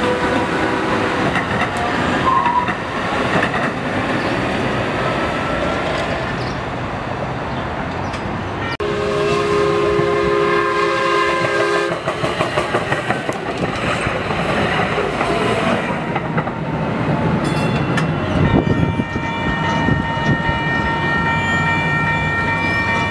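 Electric DART light-rail trains running through a station: steady wheel-on-rail and running noise as one train pulls away and another approaches. A horn sounds for about three seconds near the middle, and a steady whine of several tones sets in a few seconds before the end.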